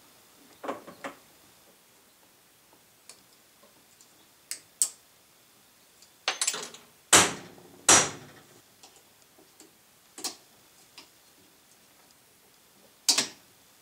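Irregular clicks and knocks from driveshaft parts and hand tools being handled while the U-joint yoke is taken off the slip yoke. There are two louder knocks in the middle and scattered lighter ticks between.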